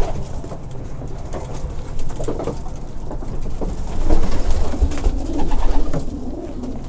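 Racing pigeons cooing, several wavering coos that come and go, over a steady low hum.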